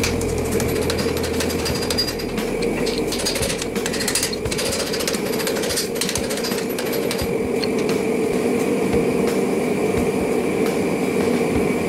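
A forge running with a steady roar, with irregular clinks, knocks and scrapes of a hammer and a red-hot steel railroad spike against an anvil bending jig as the spike is bent.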